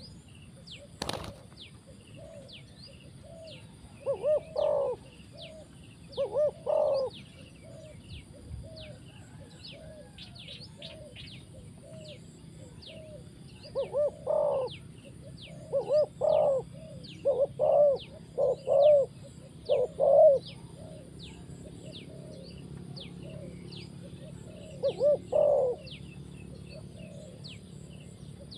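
Spotted dove cooing: groups of short, low, rolling coo phrases, with a long run of them in the middle. Faint high chirps repeat about twice a second behind the coos, and there is one sharp click about a second in.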